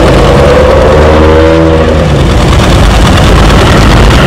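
Fishing boat's diesel engine running loud and steady as the boat passes close by, its note shifting briefly about a second in.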